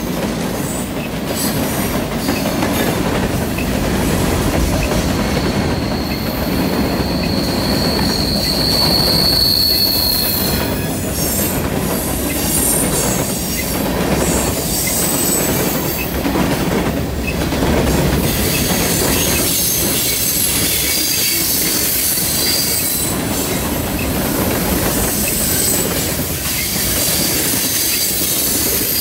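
Freight cars of a passing train rolling by: the steady rumble of steel wheels on rail with occasional clacks. A high wheel squeal is held for a few seconds about a quarter of the way in, with fainter high squeals later.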